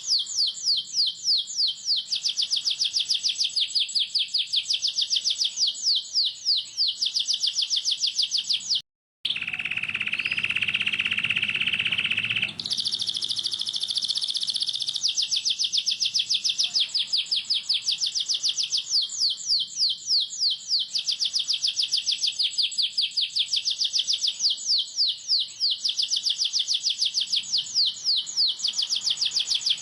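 Domestic canary singing long runs of very rapid, tight trills (a close 'roll'), with a brief cut-out about nine seconds in and a few seconds of a steadier, lower buzzing sound before the fast trills start again.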